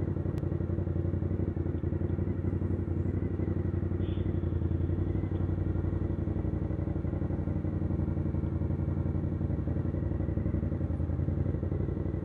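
Motorbike engine running steadily at low revs, its exhaust pulsing evenly as the bike creeps along in slow traffic.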